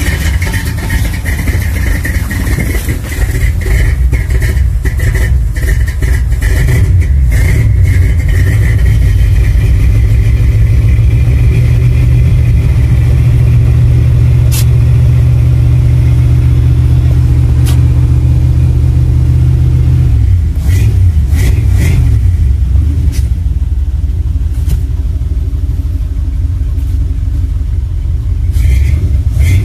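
1968 Ford F-250's big-block V8 running cold with no choke, heard from inside the cab. It runs steadily for a stretch, then its note turns uneven about two-thirds of the way through.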